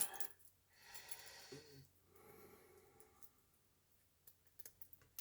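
Soft breathing with a short grunt of effort, then a quick run of small, sharp clicks near the end as a strap is worked onto a smartwatch's lug and its spring bar snaps into place.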